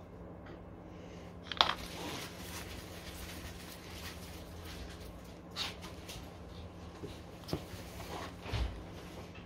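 A few short, sharp clicks and knocks of tools or parts being handled, the loudest about one and a half seconds in, over a steady low hum.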